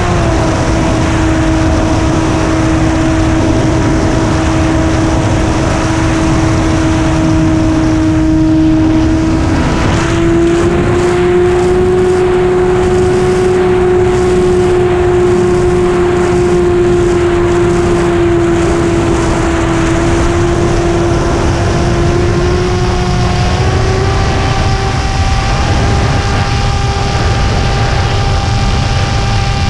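Radio-controlled model airplane's motor and propeller running steadily as a pitched hum, picked up on board with wind rushing over the microphone. The pitch falls at the very start, rises a little about ten seconds in and steps up again near the end as the throttle changes.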